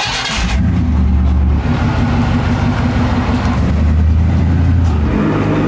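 Chevrolet K1500 pickup's engine running steadily with a deep, low hum, starting about half a second in.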